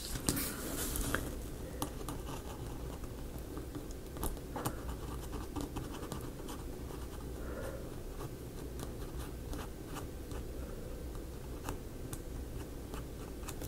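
The tip of a paint pen scratching in short strokes along the edge of a thin strip of laser-cut wood, with scattered faint ticks throughout.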